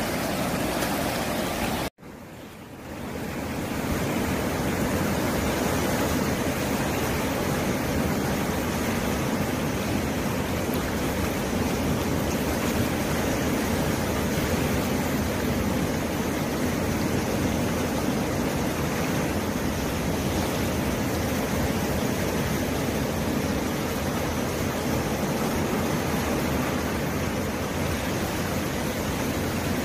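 Surf breaking and washing over rocks on a rocky shore, a steady rush of water. About two seconds in it cuts out abruptly and then swells back in.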